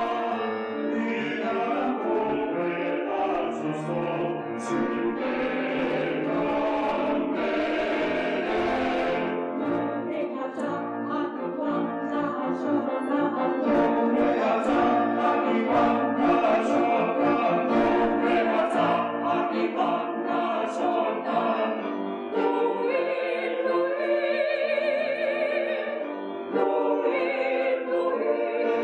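Church choir singing an anthem in several parts, sustained notes with vibrato. Higher voices come in more strongly during the last few seconds.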